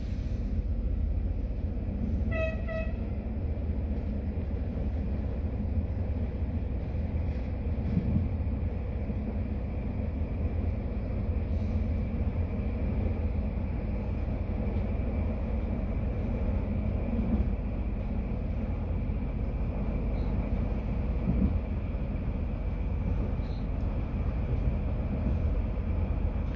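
Passenger train running steadily along the track, a continuous low rumble heard from inside the carriage. About two and a half seconds in, the train's horn gives a brief double toot.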